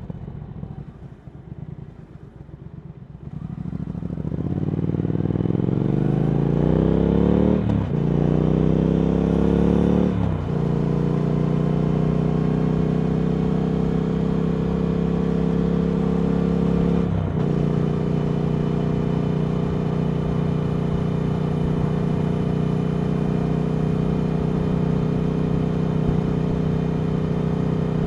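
Triumph Speed Twin 1200's 1200 cc parallel-twin engine through Vance & Hines slip-on exhausts. It runs low and quiet at first, then accelerates, rising in pitch through two quick upshifts. After that it holds a steady cruise, with one more brief shift partway through.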